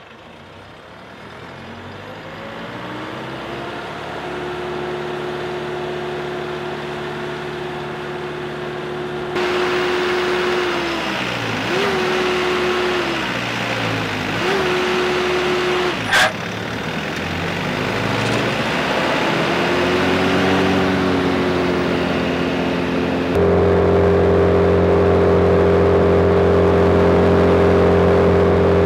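Morbark wood chipper's Cummins diesel engine running up. Its pitch rises over the first few seconds, dips and recovers twice, a sharp click comes about two-thirds through, and near the end it steps up suddenly to a louder, steady high-speed run.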